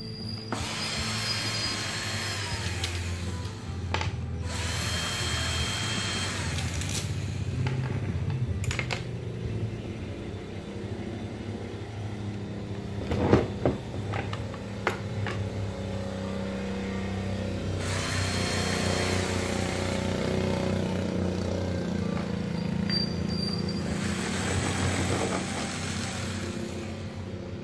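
Cordless drill-driver backing out the screws of an electric fan's motor housing, in four runs of a few seconds each. There is a sharp clack about halfway through.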